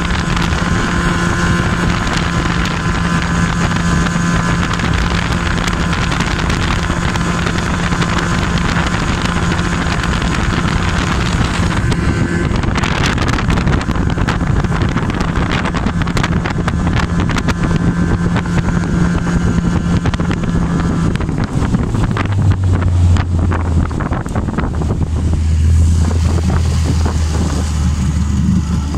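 Yamaha 20 hp two-stroke outboard motor running at speed with water rushing past and wind on the microphone, then throttled back about two-thirds of the way in to a much lower, slower running note. The motor has just been adjusted and is running without a fault.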